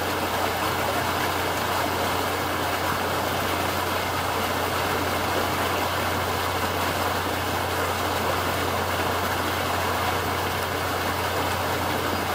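Steady low machinery hum under a constant rush of flowing water, the otter pool's water circulation running, unchanging throughout.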